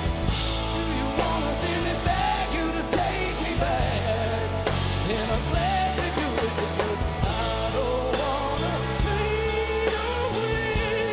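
A live rock band playing a song, with drums, guitars and a singing voice.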